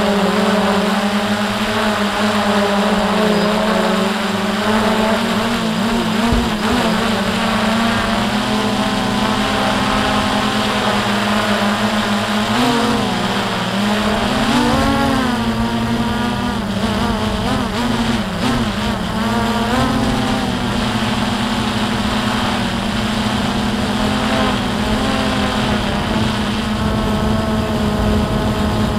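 Quadcopter drone's motors and propellers buzzing loudly and steadily in flight. The pitch wobbles up and down for several seconds in the middle as the motors change speed, then settles back to a steady hum.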